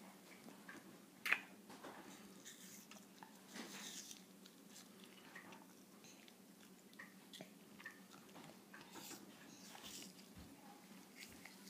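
A baby chewing and mouthing a piece of food with its fingers in its mouth: faint, scattered wet mouth clicks and smacks, with one sharper click about a second in.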